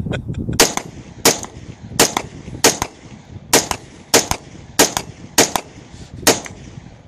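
AR-15-style semi-automatic rifle fired nine times at a steady pace, roughly one shot every two-thirds of a second, each a sharp crack with a short echo.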